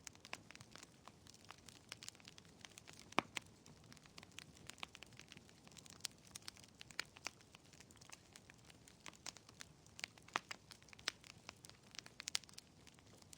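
Wood fire burning in a fireplace, crackling with irregular pops and snaps over a faint hiss. The sharpest pop comes about three seconds in.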